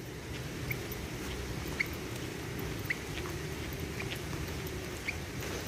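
Wet sandals squeaking on wet pavement while walking, a short high squeak about once a second. The squeaks come from the sandals being wet.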